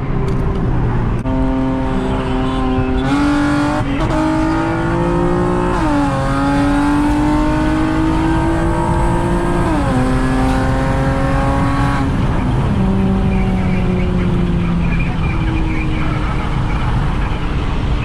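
Honda Accord's 400 hp engine pulling hard through the gears: the pitch climbs, then drops at upshifts about three, six and ten seconds in. About twelve seconds in the driver lifts off and the pitch sinks as the car slows.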